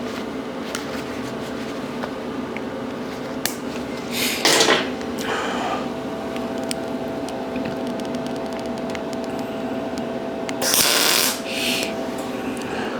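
Two short bursts of wire-welding crackle, about four and eleven seconds in, as a steel tail is tack-welded onto a quarter-inch steel plate body. Each tack lasts under a second and is followed by a briefly quieter burst, over a steady machine hum.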